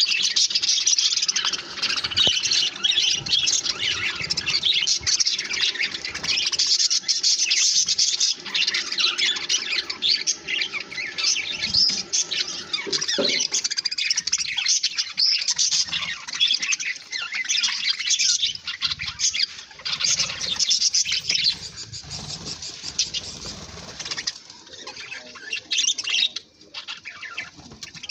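A group of budgerigars chirping and chattering, with many short calls overlapping. The calls thin out and turn more scattered over the last several seconds.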